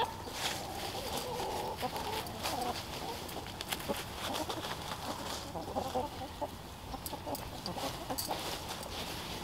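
A flock of hens clucking softly on and off while they scratch and peck through dry leaf litter, with many light rustles and ticks between the calls.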